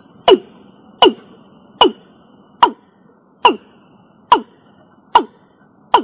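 Watercock calling: a steady series of eight short, deep notes, each dropping in pitch, evenly spaced a little under a second apart.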